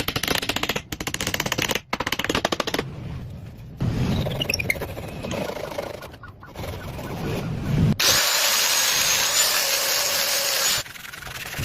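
Tools working wood in a string of short cuts: rapid rattling strokes over the first few seconds, then a steady loud whir lasting about three seconds that cuts off abruptly near the end.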